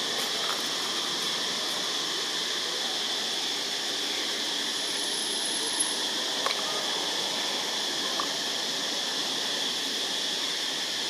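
Steady high-pitched drone of insects such as cicadas, an even, unbroken hum, with a couple of faint clicks a little past the middle.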